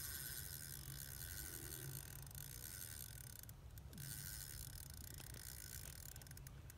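Faint ticking of a fishing reel's drag as a hooked fish runs and pulls line.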